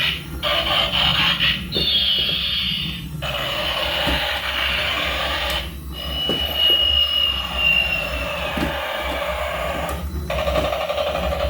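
Electronic alarm-like tones from a battery-powered toy vehicle's sound effects, in stretches broken by short gaps, with a falling tone about two seconds in and a long high tone that sinks slightly between about six and eight seconds.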